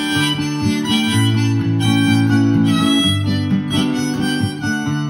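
Harmonica playing a melody of held notes over a strummed acoustic guitar.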